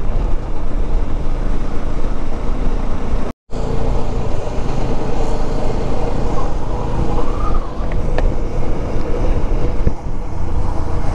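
Bajaj Dominar 400's single-cylinder engine running steadily at cruising speed, with wind rushing past. The sound cuts out completely for a moment about three seconds in, then resumes.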